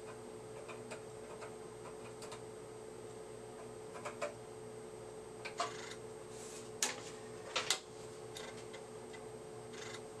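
Steady hum of a vintage IMSAI 8085 computer system with scattered clicks. The first light clicks are keystrokes as a filename is typed at the terminal. The later, stronger clicks, some in pairs, are the North Star floppy disk drive stepping as the macro assembler and its library files load from disk.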